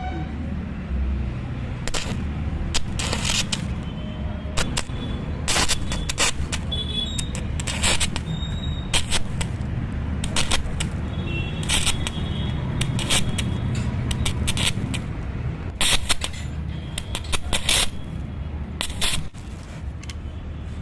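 Irregular sharp cracks and snaps from metalwork, coming singly and in quick clusters, over a steady low rumble.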